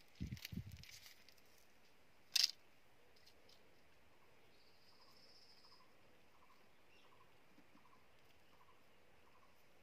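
Corn kernels being cracked off a dried cob by hand: a few crackling clicks and dull knocks in the first second, then one sharp snap about two and a half seconds in. After that only faint background with a soft, irregularly repeating tick.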